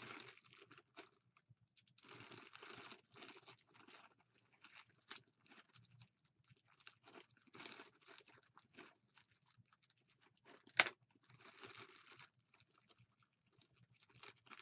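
Clear plastic bag crinkling and rustling in the hands as its stapled-shut top is picked at, in short irregular bursts, with one sharp click about two-thirds of the way through.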